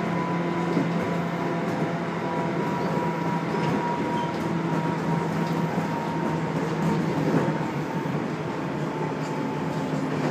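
Electric commuter train running, heard from inside the passenger car: a steady rumble of wheels on the track with a steady motor hum and whine, and a few faint clicks.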